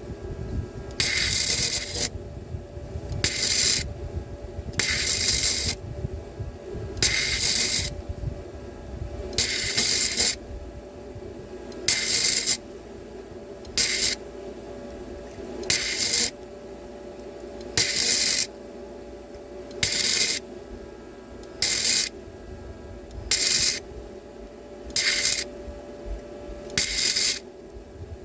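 Gasless flux-core MIG welding from a Tooliom MIG-180 Pro, done in short stitch bursts. The arc crackles and hisses for half a second to a second at a time, about every two seconds, some fourteen times in all, over a steady hum.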